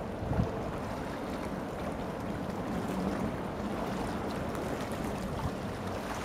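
Steady outdoor rushing noise of wind and river water with a low rumble underneath, and a brief thump about half a second in.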